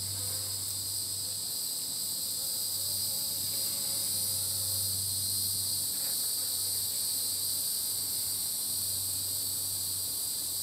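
Steady, unbroken chorus of insects chirring in the surrounding grass, high-pitched, with a faint low hum beneath it.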